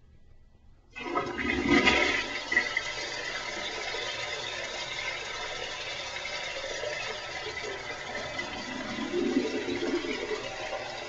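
Toilet flushing: a sudden rush of water starts about a second in and is loudest for the first second or so, then settles into a steady rush of running water that swells again near the end.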